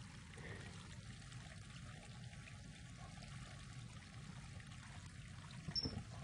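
Faint steady hiss of room and recording noise. Near the end there is a brief louder rustle with a short high squeak as a kitten pounces into a duvet.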